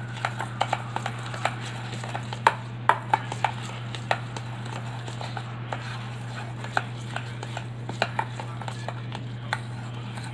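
Spoon stirring melted ice cream and crushed Oreos in a stainless steel bowl, clinking irregularly against the metal, over a steady low hum.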